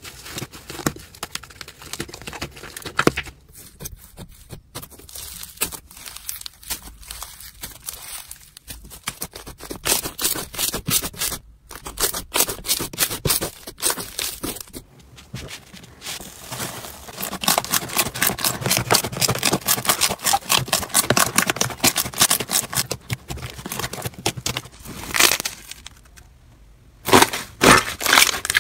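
Hands crushing and squishing slime with a crunchy crust, giving dense crackling and popping. The crackle grows fast and thick about two-thirds of the way through, dies down briefly, then a few loud pops come near the end.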